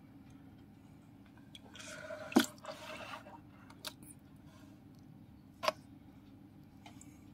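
Water splashing in a shallow tub as a hand reaches in to scoop out a small fish: a short stretch of splashing about two seconds in with a sharp splat at its height, then single splats and drips, the loudest another sharp splat near the end.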